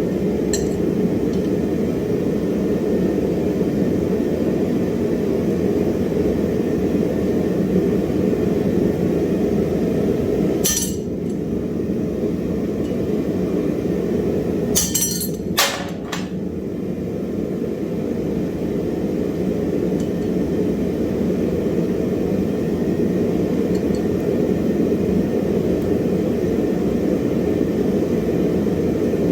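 Steady running noise of blacksmith shop machinery, with a few sharp metal clinks: one about a third of the way in and two in quick succession just past the middle.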